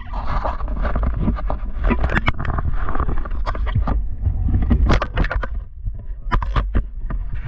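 Handling noise of an action camera gripped by a gloved hand: rubbing against the microphone with a heavy low rumble and many sharp clicks and knocks. The rubbing is loudest in the first few seconds.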